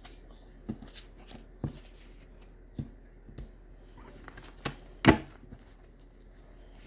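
A deck of tarot cards being shuffled and handled: scattered soft taps and flicks, the sharpest about five seconds in.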